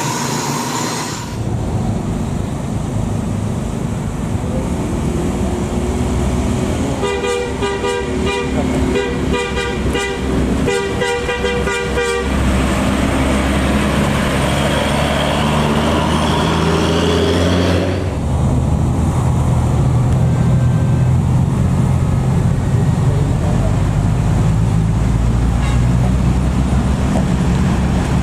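A bus's Basuri 'telolet' multi-tone musical horn plays its chopped tune for about five seconds, starting about a quarter of the way in. It sounds over the running of heavy vehicle engines in slow traffic, and a deeper engine rumble grows louder past the middle.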